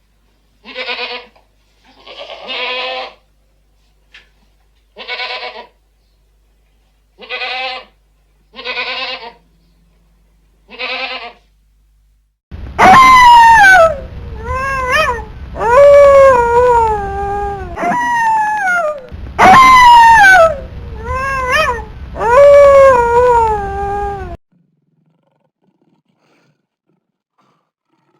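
A goat bleating in short calls, about eight of them, then a cat meowing loudly in about six long meows that fall in pitch.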